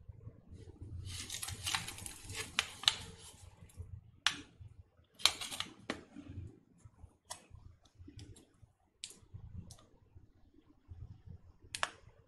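Foil candy sachet (Geef Magic Pops) crinkling as it is handled and turned over in the fingers: a dense stretch of crinkling about a second in, then single sharp crackles every second or so.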